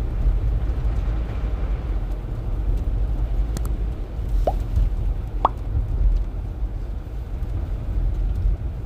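Car driving on a snowy road, heard from inside the cabin: a steady low rumble of road and engine noise, with two brief rising blips about four and a half and five and a half seconds in.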